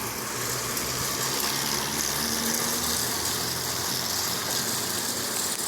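Steady storm noise of strong wind and rain, with a low steady hum underneath.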